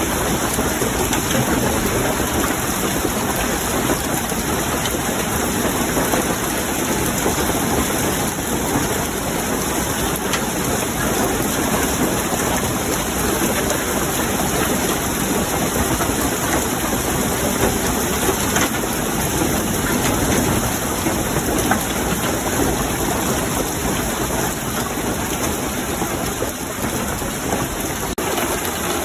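Hail falling steadily: a dense, continuous rattle of hailstones striking.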